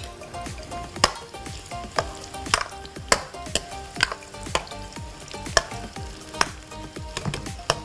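Spatula stirring and scraping in a frying pan, knocking on the pan about twice a second, over the sizzle of a keema (minced meat) mixture frying in oil.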